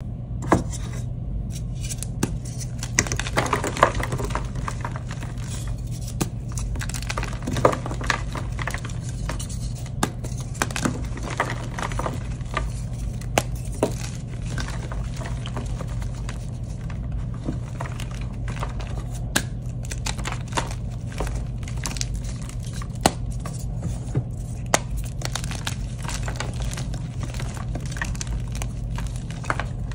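Blocks of dyed gym chalk being crushed and crumbled by hand: a dense run of soft crunches and crisp crackles, with sharper snaps now and then. A steady low hum runs underneath.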